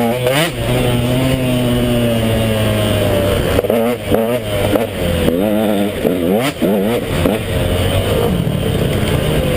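KTM 150 XC two-stroke dirt bike engine under riding load. It holds a fairly steady pitch for a few seconds near the start, then revs up and down rapidly as the throttle is worked over rough terrain.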